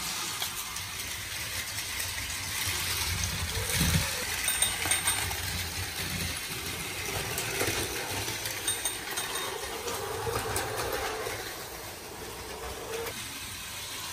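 Battery-powered plastic toy trains running on plastic track: steady whirring of their small motors with plastic rattling and a few clicks.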